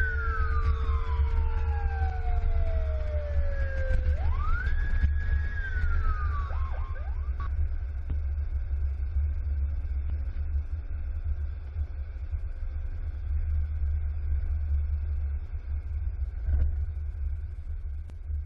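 Seagrave fire engine's siren wailing, rising and falling twice, then winding down and stopping about seven seconds in. A steady low rumble of wind and road noise from the moving truck continues under it and after it.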